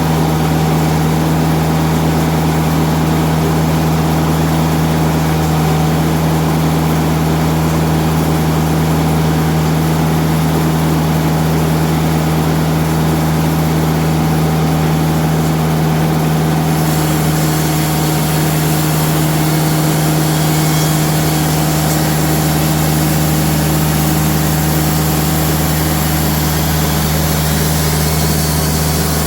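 Diesel engine of a TimberKing band sawmill running steadily at a constant speed. About halfway through, a higher hiss joins in over the engine and continues.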